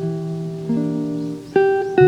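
Background music: plucked acoustic guitar, with new chords struck about two-thirds of a second in and again near the end.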